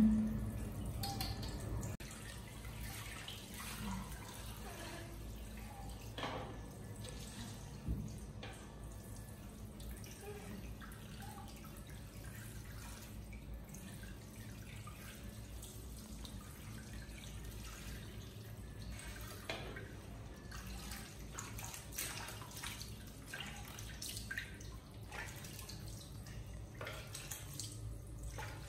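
Handheld shower head spraying water onto a tiled floor and over a baby monkey, water streaming and dripping into a small plastic tub. A few short knocks stand out, the sharpest right at the start.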